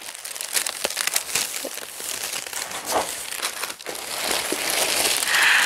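Packaging wrapping crinkling and rustling as it is handled and opened. There is a continuous run of small crackles that grows louder toward the end.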